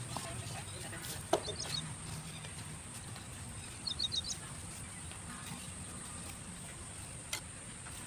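A bird chirping in two quick runs of short high notes, about a second and a half in and again around four seconds, over a steady high whine and low background noise; a sharp tap sounds just after a second in and another near the end.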